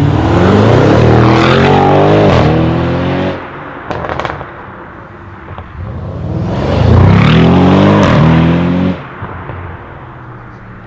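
Two Audi RS6 C7s, each with its 4.0-litre twin-turbo V8, accelerating hard one after the other. The first run climbs in pitch through an upshift and cuts off about three seconds in, followed by a few sharp pops. The second climbs the same way and cuts off near nine seconds.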